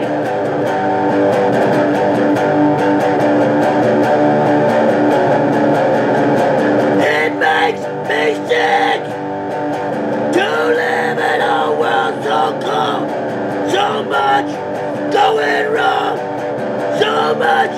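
Electric guitar playing a heavy metal instrumental passage between sung lines.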